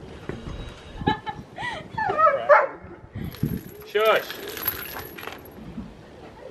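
A few short, high calls that bend up and down in pitch, the loudest about four seconds in, dog-like yelps or excited vocal sounds. Between them come light metallic clinks and knocks as lug nuts and a wheel are handled on concrete.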